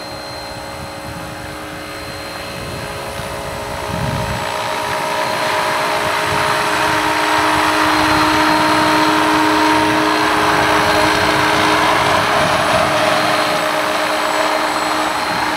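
SAB Goblin Urukay electric RC helicopter hovering. Its three-bladed main rotor makes a steady whoosh over a steady whine. The sound gets louder about four seconds in.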